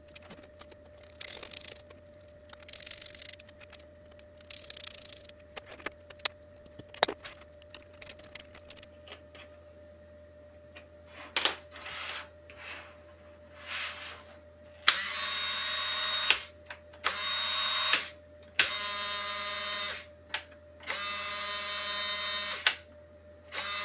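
Small power tool running in five bursts of one to two seconds each in the second half, its motor pitch steady and each burst stopping abruptly. Before that, a few short rasping noises.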